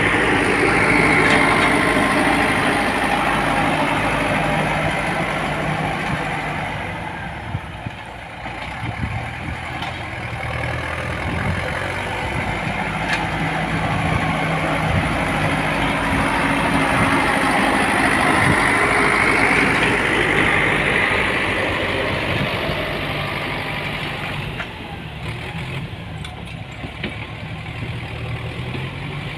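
Diesel engine of heavy road-construction machinery running steadily. It swells louder near the start and again about two-thirds of the way through, with a lull in between.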